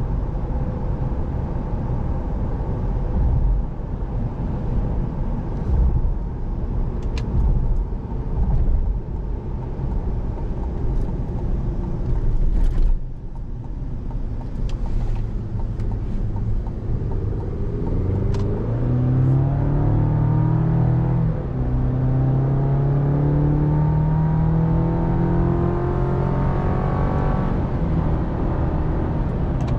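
Cabin sound of a 2023 Chevrolet Colorado ZR2 with its 2.7-litre turbocharged four-cylinder engine: steady road and tyre rumble at speed through the first half. From about halfway the engine note rises under hard acceleration, dropping back at automatic upshifts about two-thirds through and again near the end.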